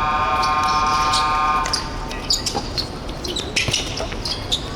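Electronic game buzzer in a sports hall, one steady tone that cuts off a little under two seconds in. After it come sneakers squeaking and a ball bouncing on the court floor.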